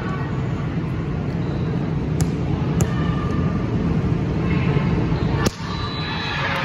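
Steady din of a busy indoor volleyball gym, a dense low rumble of many people and play across several courts, broken by a few sharp smacks of balls being hit, the loudest about five and a half seconds in.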